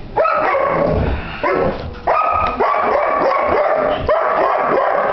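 An Irish Setter giving loud, drawn-out whining cries, three in a row, each lasting one to two seconds.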